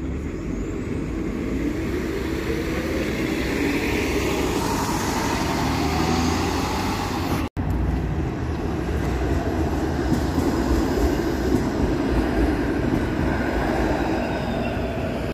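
City transit bus engine running at the curb, its pitch rising a few seconds in. After a brief dropout about halfway, a Bombardier Flexity Outlook streetcar passes close by with a steady hum amid street noise.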